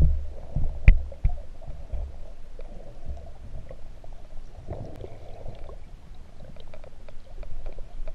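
Muffled underwater sound picked up by a camera in a waterproof housing: a low rumble of moving water with scattered small clicks and crackles, and one sharp click about a second in.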